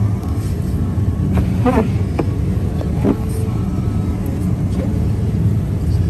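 Car driving on a snowy road, heard from inside the cabin: a steady low rumble of engine and tyres.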